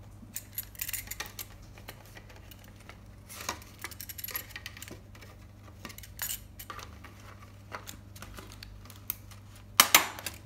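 Paper-plate pieces being handled, rustling and clicking lightly, then one sharp stapler clack near the end as the ear is stapled on.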